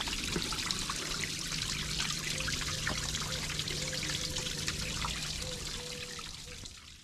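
Water running and trickling steadily onto wet concrete, with a low steady hum underneath, fading out near the end.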